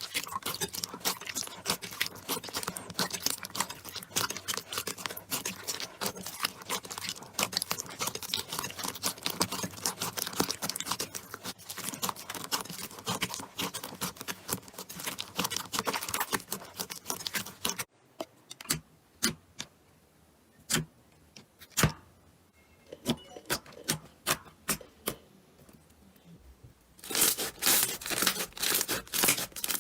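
Slime being squeezed and worked by hand, giving dense, fast crackling and popping. About two-thirds of the way through it changes abruptly to sparse single pops, and near the end dense crackling starts again.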